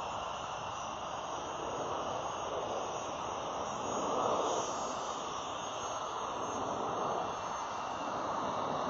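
Jet airliner engine noise, a steady rush that swells a little about four seconds in.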